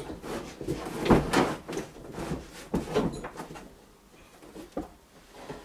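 Clunks and rattles of the metal frame and hitch bar of a motorised snow tow being handled and moved during assembly: a string of separate knocks, the loudest about a second in.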